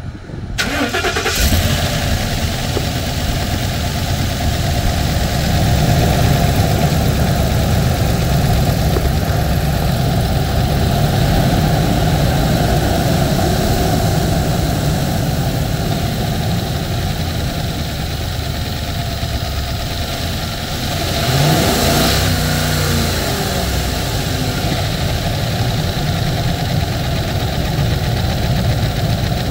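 2019 Ford F-250 XL's V8 engine, heard from the open engine bay, starting up and settling into a steady idle. About three-quarters of the way in it is revved briefly, its pitch rising and then falling back to idle.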